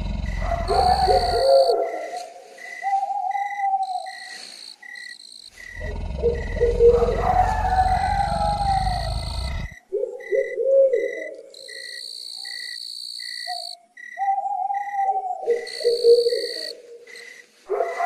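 Night-time nature ambience: crickets chirping with a short, even chirp about twice a second, higher insect trills coming and going, and low hooting calls. A low rumbling noise runs under it for the first second and a half and again from about six to ten seconds in, where it cuts off suddenly.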